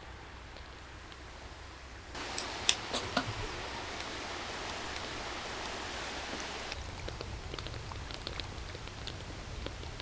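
Wood fire crackling with scattered sharp snaps over a steady hiss. The hiss jumps louder about two seconds in, with a few loud pops just after, and drops back near seven seconds.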